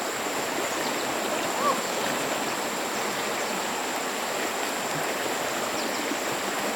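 Flowing stream water rushing steadily, with a thin high steady tone above it and a brief chirp about a second and a half in.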